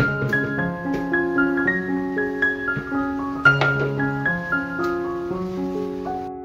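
Background piano music: a melody of single notes over held lower notes.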